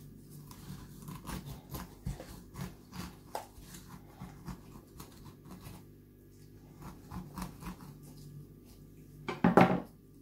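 Serrated knife sawing and scraping through pineapple flesh and core inside the hollowed-out pineapple shell, a string of short, irregular crunchy cuts. A louder clatter comes near the end.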